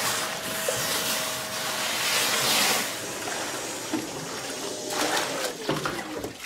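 Kärcher wet-and-dry vacuum sucking water out of a blocked sink, slurping and gurgling in surges over the motor's steady whine. About five seconds in, the whine slides down in pitch as the motor winds down.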